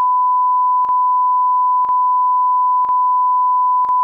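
Steady pure line-up reference tone of the kind laid under colour bars at the head of a programme master for setting audio levels, broken by a short click about once a second.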